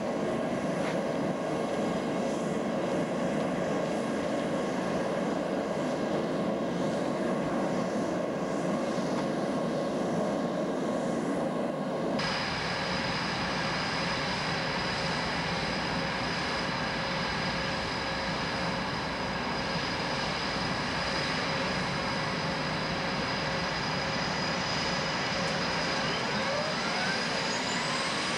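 F/A-18F Super Hornet jet engines (twin General Electric F414 turbofans) running on the flight line: a steady rush with a high whine. The sound changes abruptly about twelve seconds in, leaving a higher steady whine, and a whine rises in pitch near the end as an engine spools up.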